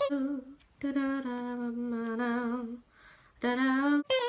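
A voice singing long held notes with a slight waver, as in a song: a short note at the start, one held for about two seconds, then a shorter one near the end.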